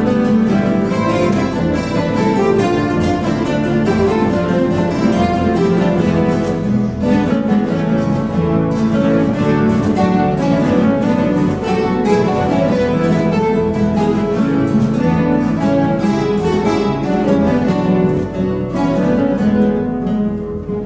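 A guitar orchestra of many classical guitars playing together: dense plucked and strummed notes, with the sound beginning to die away just before the end.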